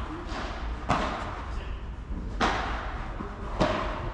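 Padel rally: the ball is struck by solid padel rackets and bounces on the court, giving three sharp pops about a second apart, each with a short echo in the covered hall.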